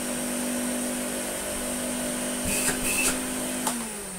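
Electrolux Slimline 185 vacuum cleaner running steadily on a test run with its replacement motor fitted, a high whine over the motor hum, with a few clicks about two and a half to three seconds in. Near the end it is switched off and the motor's pitch falls as it spins down.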